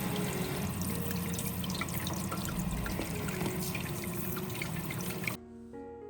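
Running water splashing steadily, cutting off suddenly about five seconds in.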